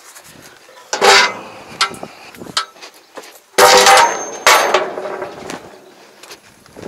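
Aluminium loading ramps clanging against a steel truck bed as they are handled. There is one loud clang about a second in, then two more in quick succession past the middle, each ringing briefly, with smaller knocks between.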